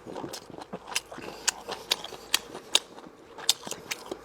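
Close-up eating sounds: chewing and biting into braised spicy lamb rib meat and cartilage, with a string of irregular sharp crunches.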